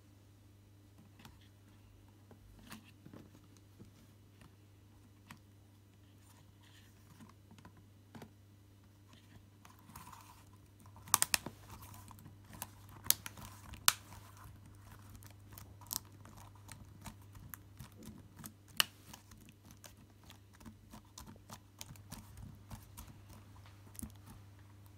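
Typing on a Packard Bell Dot S netbook's chiclet keyboard: scattered key clicks at first, then steady quick typing from about halfway in, with a few louder key strikes. A faint steady low hum lies underneath.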